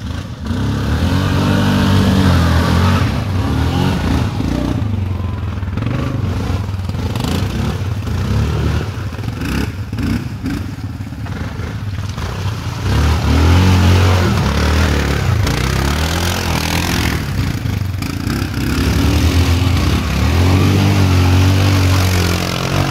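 Access Max 750 ATV engine revving up and down as the quad is ridden, its pitch climbing and dropping again and again, loudest in two long pulls in the second half.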